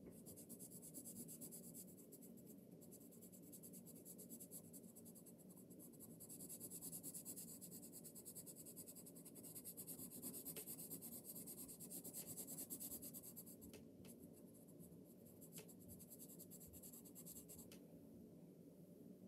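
Faint scratching of a coloured pencil shading on paper in quick back-and-forth strokes, with a few light taps, stopping near the end.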